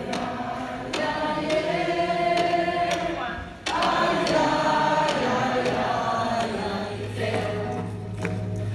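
A small group of voices singing together on stage. The singing breaks off and starts again abruptly about three and a half seconds in, and a steady low hum joins under it near the end.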